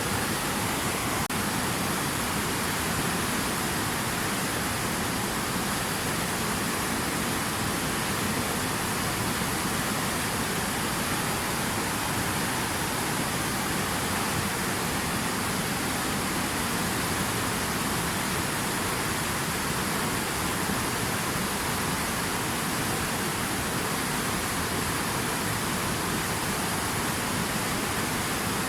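Steady rushing water, an even, unbroken hiss and rumble.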